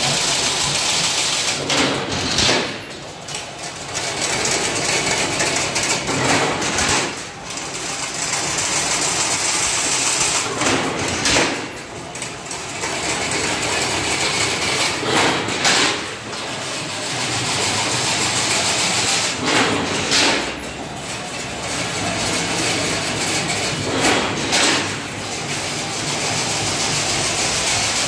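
Automatic chain link fence machine running, weaving wire into diamond mesh: a steady mechanical clatter with a louder surge about every four and a half seconds as the weaving cycle repeats.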